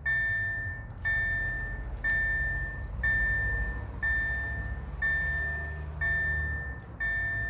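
Level-crossing warning bell striking about once a second, each strike ringing and fading, over a steady low rumble.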